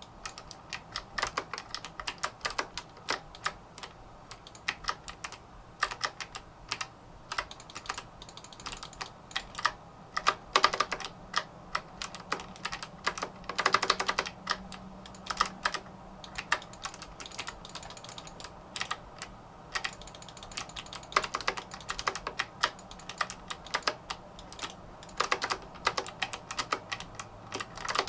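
Typing on an MSI Vigor GK50 Low Profile keyboard with Kailh Choc PG1350 low-profile mechanical switches: a steady run of key clicks, with a quick flurry of keystrokes about halfway through.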